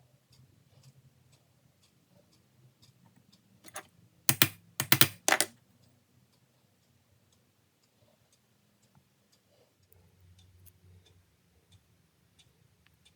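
Small metal latch on a wooden router bit box being snapped open and shut, a quick run of sharp clicks about four seconds in, as the repaired latch is tried out. Faint regular ticking, about two a second, runs underneath.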